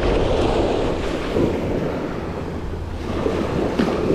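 Small surf waves washing up on a sandy beach, with wind noise on the microphone.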